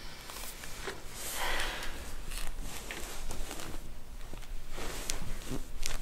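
Hands pressing and rubbing on a patient's upper back during a chiropractic adjustment: soft skin and clothing rustle, a breathy rush about a second and a half in, and a few faint scattered clicks.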